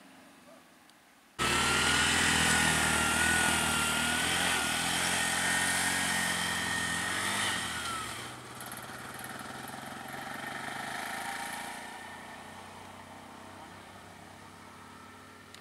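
A motor vehicle's engine running close by. It starts abruptly about a second and a half in with a steady low hum and hiss, drops in level about eight seconds in, then fades slowly.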